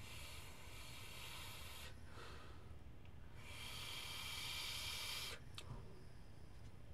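Horizontech Vertex Plus rebuildable tank atomizer on a vape mod at 50 watts, hissing with airflow and coil sizzle as it is pulled on. There are two stretches of hiss about two seconds each, the second louder, and a short click near the end.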